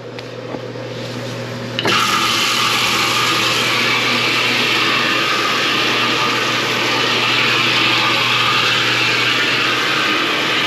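Bathtub faucet opened about two seconds in, water running hard and steady into the tub as a test for the main-line clog that makes the toilet gurgle, over a steady low hum.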